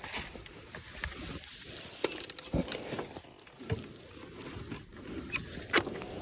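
Irregular knocks, clicks and scuffs over a low rumble, with the loudest sharp knock near the end.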